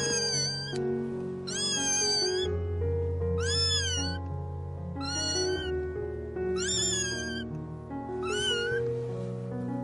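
Very young kittens mewing: about six high-pitched cries, each under a second long and coming roughly every second and a half. Background music with steady low notes plays underneath.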